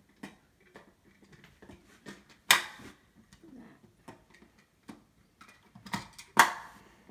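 Plastic square building tiles clicking and knocking against each other as a cube net is folded up into a cube, with two sharper clacks about two and a half seconds in and again near the end.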